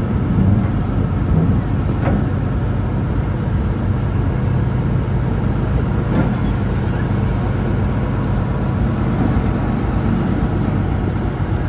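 A motor vehicle's engine running steadily, a continuous low hum with a few faint clicks.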